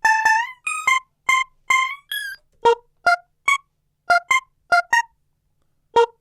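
Eurodance synth loop: short, staccato synth notes playing a bouncy melody, each note cut off sharply with silence between, and no drums. The melody pauses for about a second near the end before starting again.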